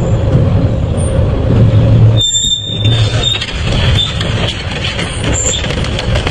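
Double-shaft shredder running under load with a heavy grinding rumble as its toothed blades grip and crush a motorcycle wheel and tyre. A high metallic squeal cuts in about two seconds in and lasts about a second.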